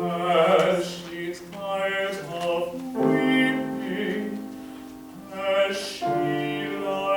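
Classical art song sung by a solo voice in a trained, operatic style, with piano accompaniment; several sung phrases with short breaths between them.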